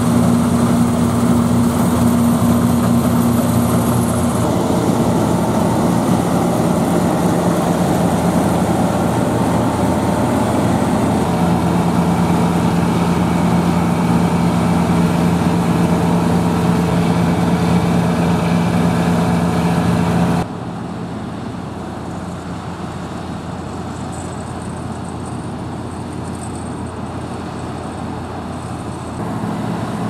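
New Holland TC5050 combine harvester running steadily while harvesting barley: a continuous engine and machinery hum. About two-thirds of the way through it becomes quieter and duller, and it grows slightly louder again near the end.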